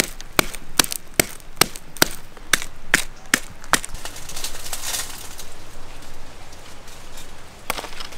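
Ginger being pounded to a paste with sharp, even knocks about two or three a second that stop a little under four seconds in. A softer rustling noise follows, with two more knocks near the end.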